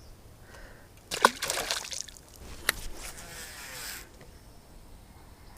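Water splashing and sloshing in a couple of short bursts, with sharp clicks about a second in and again near the middle.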